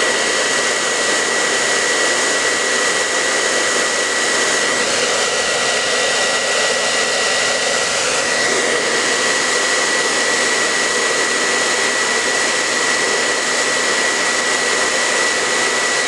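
Handheld hair dryer running steadily on its high setting: a continuous rush of blown air with a thin, steady whistle above it.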